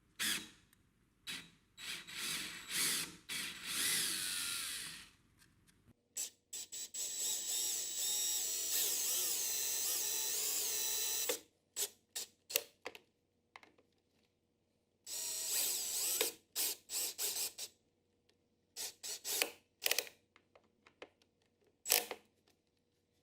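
CRAFTSMAN V20 20-volt cordless drill running in short trigger bursts, with a longer steady run of about five seconds in the middle and another of about two seconds later, as it backs screws out.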